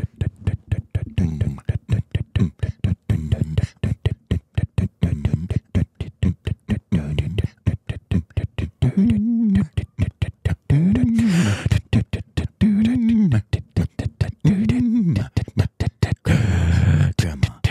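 Rhythmic, rapidly chopped vocal percussion like beatboxing, with four rising-and-falling sung glides about two seconds apart in the middle.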